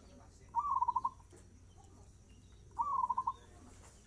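Zebra dove (perkutut) singing its fast-tempo cooing song twice, about two seconds apart: each phrase is a short rising-and-falling note followed by a quick run of clipped repeated notes.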